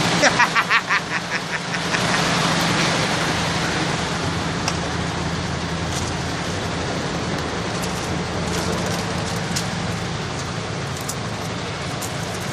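MAN TGS 33.430 truck's diesel engine idling steadily, heard from inside the cab as a low, even hum. In the first second and a half, a rapid string of short ticks sounds over it.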